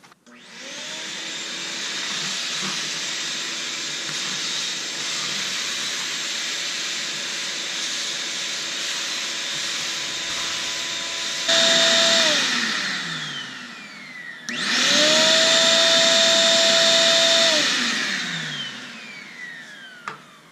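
Motor of a 12-gallon Ridgid shop vac switched on and running for about eleven seconds, briefly louder, then switched off and spinning down with falling pitch; it is switched on again, runs about three seconds and winds down once more. The repaired on/off switch, its contacts cleaned of residue, now starts and stops the vacuum.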